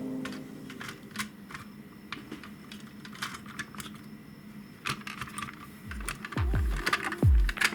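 Light, irregular clicks and taps of small parts being handled and worked on a model car. About six seconds in, electronic music with deep, falling bass thumps comes in.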